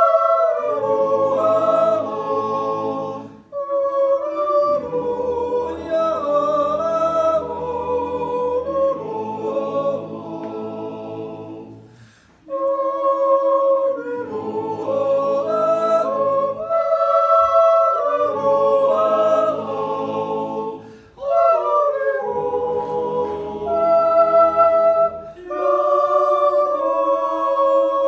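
A Swiss yodel club's men's choir singing a cappella in close, sustained harmony, breaking off briefly between phrases three times.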